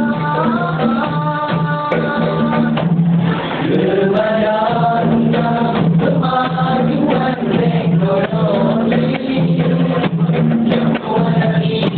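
Male nasyid group singing together into microphones, with hand drums keeping a steady beat underneath.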